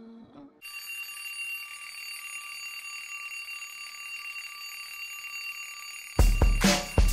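An alarm clock ringing steadily for about five seconds, then cut off near the end by loud upbeat music with a strong beat.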